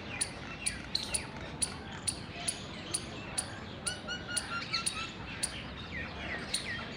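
Indian palm squirrel calling: a steady series of sharp, high chips about two a second. Birds chirp alongside, with a short run of falling notes about four seconds in.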